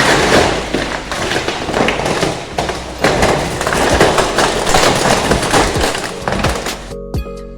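Steel roll-up door rattling and clattering as it rolls, in two long runs, with music faintly underneath. It cuts off about seven seconds in, leaving only music.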